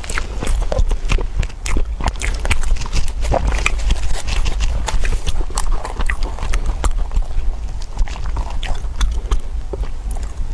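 Close-up crunchy chewing: many irregular crisp crunches and clicks as someone bites and chews food.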